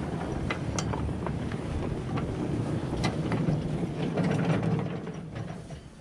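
Old garden tractor pushed by hand over packed snow, its tyres crunching and creaking with scattered clicks, fading over the last second or so as it rolls away.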